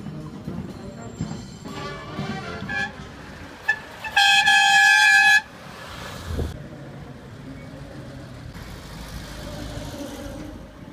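A classic car's horn gives a short toot and then one long steady blast of about a second, about four seconds in. Music plays at the start, and afterwards car engines run as cars pull away.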